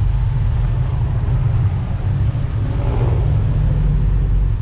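Steady low rumble of wind buffeting the microphone and motorcycle running noise while riding along a street.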